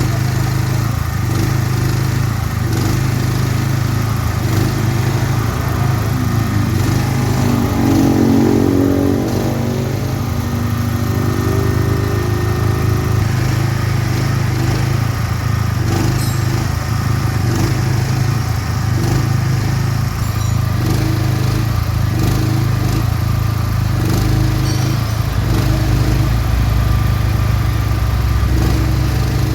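Small engine running steadily at a constant speed, with a second engine tone swelling and then fading about a third of the way in.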